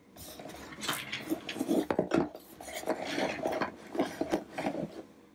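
Handling noise as a plastic tray is slid under a car radio's metal chassis and the radio is set down on it: irregular plastic scraping and clattering knocks that stop about five seconds in.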